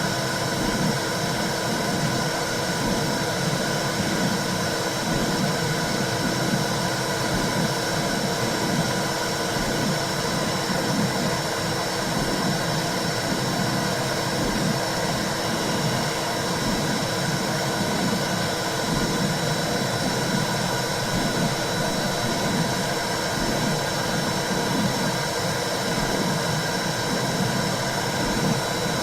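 Womb sound for soothing a baby: a steady whooshing noise with a low pulsing that swells and fades about once a second, like blood flow and a heartbeat heard from inside the womb.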